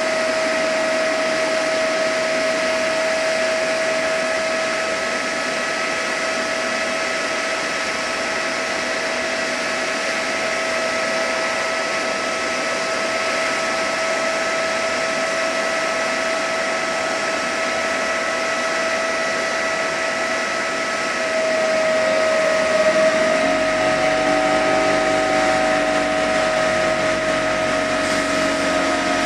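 Standing electric locomotive's blowers and equipment running: a steady whirring whine with several held tones. From about 22 s in, an electric multiple unit draws up alongside, adding a lower hum and a tone that slides in pitch.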